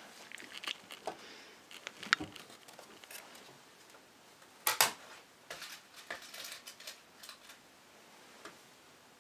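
Small clicks and rustles from hands handling a crochet hook and yarn, with a sharp click about two seconds in and a louder double click near the middle.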